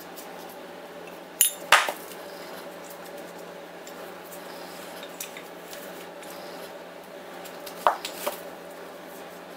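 Metal brake pads clinking against a Suzuki Burgman 400 scooter's front brake caliper as they are pulled out: two sharp clicks about one and a half seconds in, and two more near the end.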